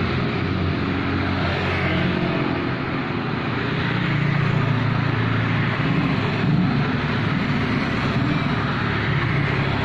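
Road traffic passing: vehicle engines running and tyres on the road, a steady continuous sound with engine notes shifting as vehicles go by.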